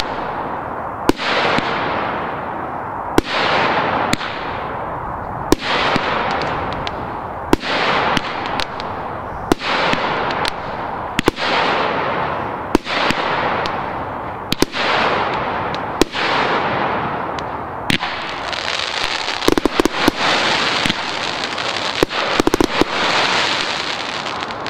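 Cube Fireworks Explosive Box 4 firework cake firing shot after shot, a sharp bang about every one to two seconds, each followed by a fading hiss. In the last few seconds the shots come faster, in quick clusters, over a continuous hiss.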